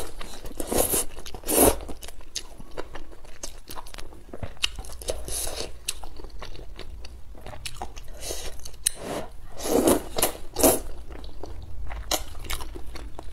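Close-up mouth sounds of a person eating thick, saucy Xinjiang-style stir-fried rice noodles: wet slurping of noodles into the mouth and steady chewing. The loudest slurps come about a second in and again near ten seconds.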